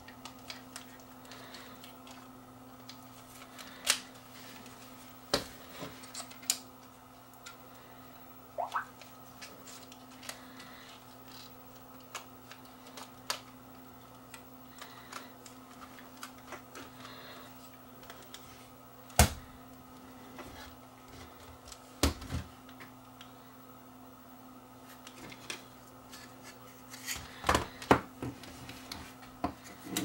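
Small camcorder parts and tools being handled during reassembly: scattered clicks and knocks of plastic pieces, with a few sharper knocks and one brief squeak, over a steady low hum.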